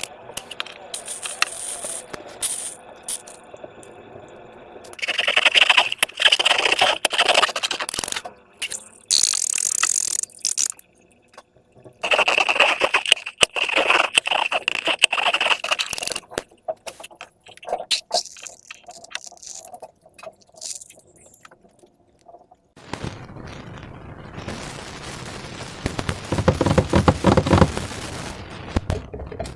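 Slime and rubber balloons being handled: several stretches of rubbing noise dense with sharp clicks, separated by short pauses. The last stretch, near the end, is deeper.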